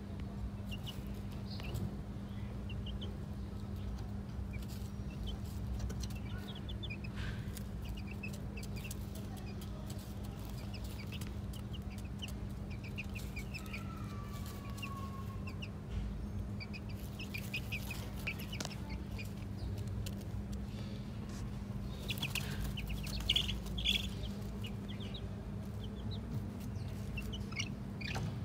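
Young chicks peeping in short scattered runs of high chirps as they forage on gravel, a little louder a few seconds before the end, over a steady low hum.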